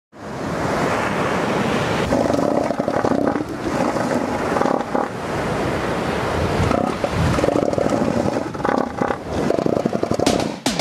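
Seals calling in several bouts of rapid, rattling pulses, over the steady wash of surf.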